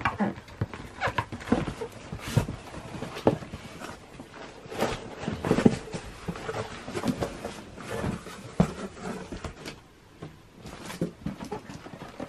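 Packaging being handled as a sneaker box is taken out: irregular rustling, scraping and small knocks.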